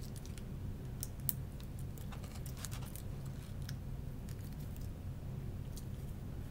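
Scattered small clicks and crinkles of eating and of handling food and a small sauce packet, heard close up, with a cluster about two to three seconds in. A low steady hum runs underneath.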